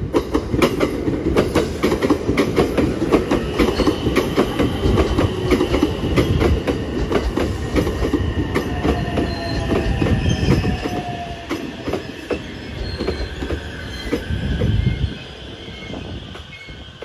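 JR West 225 series electric train running past close by: a heavy rumble with a quick run of wheel clacks over the rail joints and a thin high whine above it. The rumble drops away about fifteen seconds in as the last car goes by.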